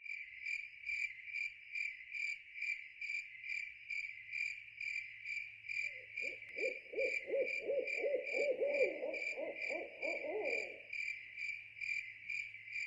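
A night insect chirping steadily, a high pulse repeating about three times a second. Midway, for about five seconds, a lower trilled animal call joins it.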